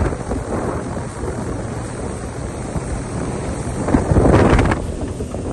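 Wind buffeting the microphone aboard a motorboat under way, over the steady low drone of its engine; a louder gust comes about four seconds in.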